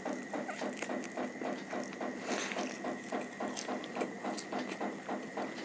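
Close-miked eating sounds: chewing with a quick, even rhythm of about five soft pulses a second, and a few sharp wet clicks.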